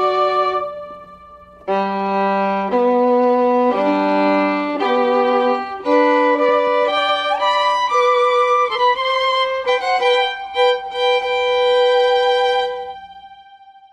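Background music led by a violin playing a melody, with a short pause about a second in; it fades out near the end.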